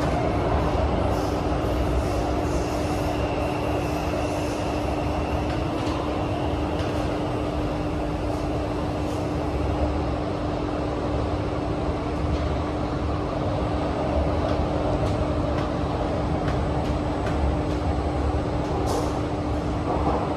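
Inside a Kawasaki–CRRC Qingdao Sifang CT251 metro train running at speed through a tunnel: a steady rumble and rush of wheels and air, with one constant hum held throughout.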